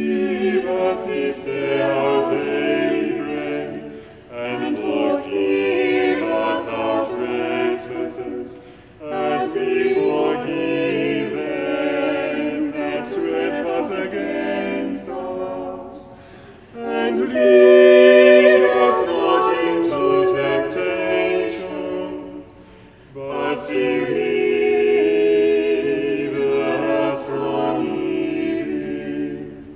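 A small choir of lay clerks singing unaccompanied in harmony, in several phrases with short breaks between them.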